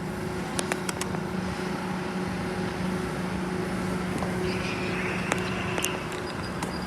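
Heavy vehicle engine running steadily with a low, even hum, with scattered light clicks and a brief high whine about four and a half seconds in.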